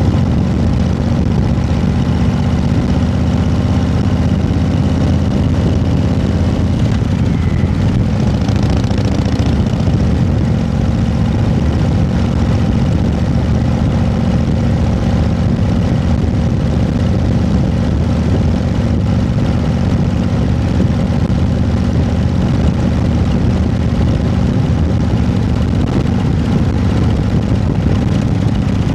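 An engine running steadily: a constant low drone with no change in level.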